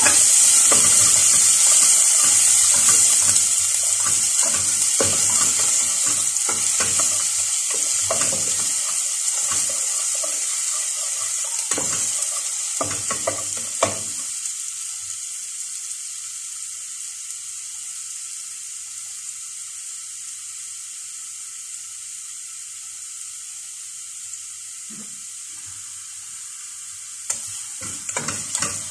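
Minced ginger sizzling in hot oil in a stainless steel pot, stirred with a spatula that scrapes and taps against the pot mostly in the first half. The sizzle is loudest at first and fades gradually, with a few more taps of the spatula near the end.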